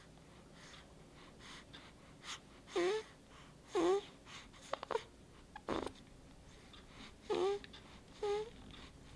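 Sleeping baby snoring: a series of short, squeaky, wheezy breaths about a second apart, with a short snort-like puff in the middle.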